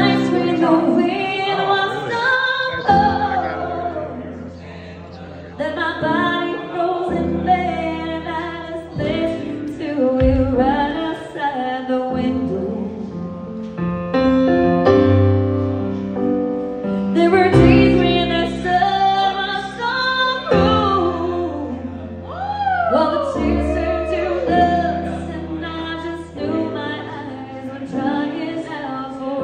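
A woman singing live into a microphone while playing held chords on a Roland Juno-DS synthesizer keyboard, with a few wide vocal swoops a little past the middle.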